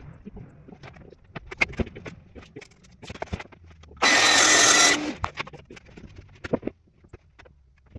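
Track saw briefly cutting a plywood sheet along its guide rail, a loud whine with a steady pitch lasting about a second, halfway through. Before and after it come quick knocks and clatter of tools and boards being handled.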